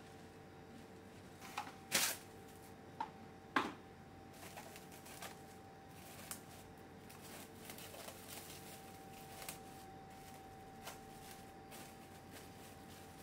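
Plastic cling film crackling as it is handled and pressed down over a glass bowl of shredded cabbage and carrot. A few sharp, loud crackles come about two and three and a half seconds in, then a run of softer, scattered crinkles.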